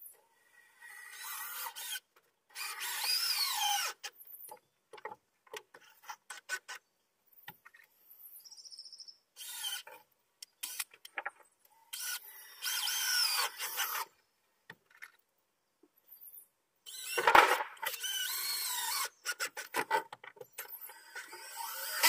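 Power drill driving screws into wooden deck boards in several runs of one to two seconds, with a squealing pitch that bends up and down as each screw goes in. Short clicks and knocks come between the runs.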